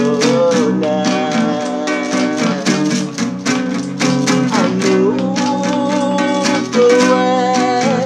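A man singing to a nylon-string classical guitar, capoed, strummed in a steady rhythm, his voice holding long notes over the chords.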